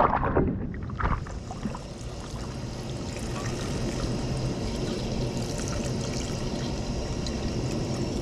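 Fish splashing in a net twice in the first second or so. Then water is poured from a pan into a pot of pork on a portable butane stove, a steady trickle with a hiss.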